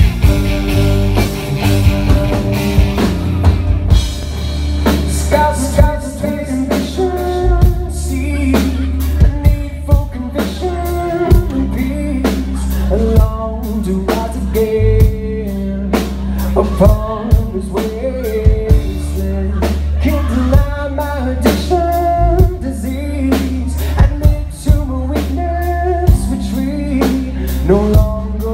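Live rock band playing: electric guitar, keyboards, bass and a drum kit keep a steady beat, and a singer comes in about five seconds in, all filmed from the audience.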